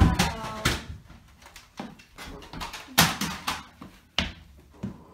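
A few separate knocks and thumps at irregular spacing, the loudest at the start and about three seconds in.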